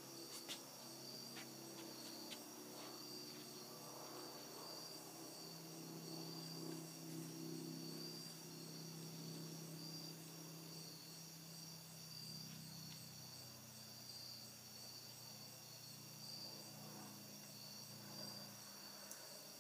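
Crickets chirping steadily in a high, pulsing trill, faint, over a low steady hum that swells in the middle.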